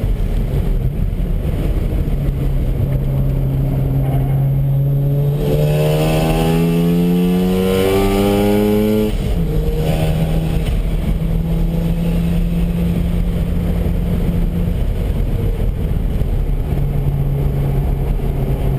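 Mazda RX-7 FD3S rotary engine pulling hard under acceleration, its pitch climbing steadily for about three seconds and then dropping sharply at an upshift about nine seconds in. After the shift it runs at a steady pitch, which shifts again around fifteen seconds in.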